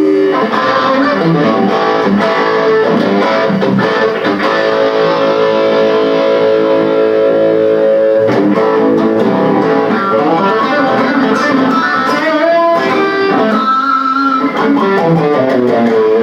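Electric guitar music: plucked notes and held tones, with some notes sliding up and down in pitch.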